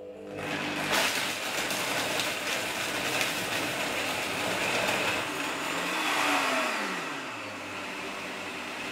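Optimum 9900 high-speed blender running at full power, blending ice, frozen banana and coconut water into a smoothie. Near the end the motor's pitch falls and it gets quieter as it winds down.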